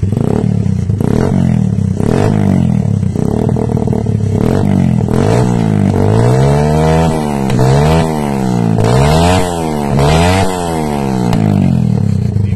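Keeway 152 motorcycle engine through an aftermarket bullet pipe exhaust being revved: short uneven throttle blips at first, then from about halfway several smooth runs up and back down in pitch, to nearly three-quarter throttle.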